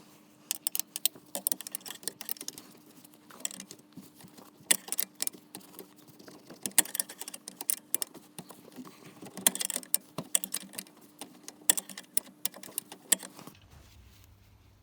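Hand tools clicking and clinking on metal while a 14mm nut on a Citroen XM's Diravi steering unit is undone, with rapid sharp clicks in short bursts.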